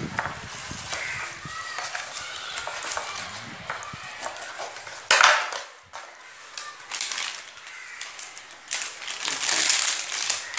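A kitchen knife scoring raw chicken leg pieces on a steel plate: irregular small clicks and scrapes of the blade against the metal. There is a brief loud rush of noise about five seconds in and a longer hiss near the end.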